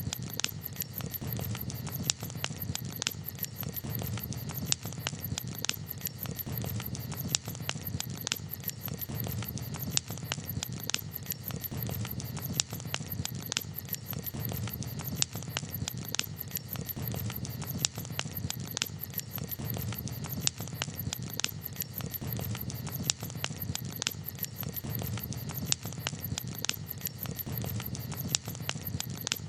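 Wood campfire crackling, with frequent sharp irregular pops and snaps over a steady low rumble.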